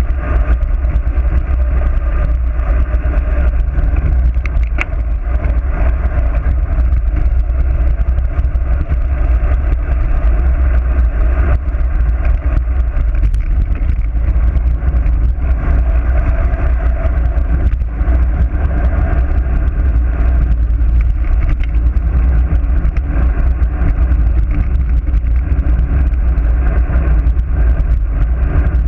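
Wind rushing over a GoPro camera mounted on a road bike descending fast: a loud, steady, deep rush, with road and tyre noise underneath.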